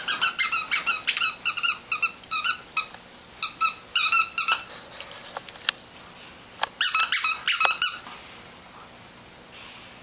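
A greyhound chewing a squeaky sock monkey toy, making it squeak over and over in quick squeaks. There are two flurries of squeaking with a pause of about two seconds between them, and the squeaking stops about eight seconds in.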